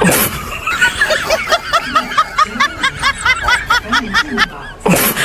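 Cartoon-style snickering sound effect: a quick, even run of high-pitched 'hehehe' chirps. A sudden sharp swish comes at the start and another near the end.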